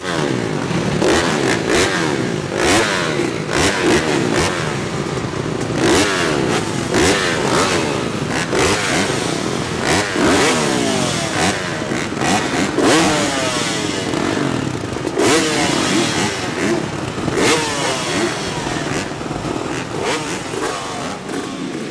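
A pack of motocross dirt bikes revving their engines at the starting gate. The overlapping throttle blips rise and fall in pitch over a steady running drone.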